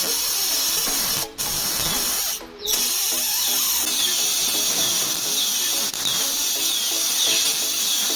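Homemade 12 V battery spark welder arcing, a loud continuous crackling hiss that breaks off briefly twice in the first few seconds, over background music.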